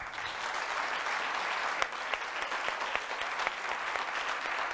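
Studio audience applauding: dense, steady clapping that starts abruptly and carries on without letting up.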